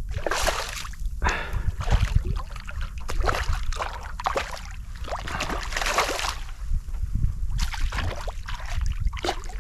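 Water splashing and sloshing in irregular bursts as a hooked trout thrashes at the surface while being played in, over a steady low rumble.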